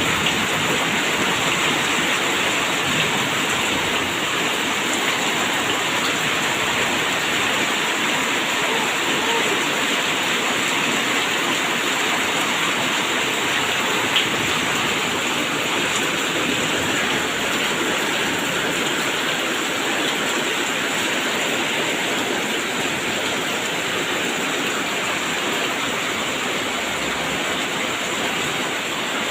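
Rain falling steadily, an even hiss with one brief sharp tick about halfway through.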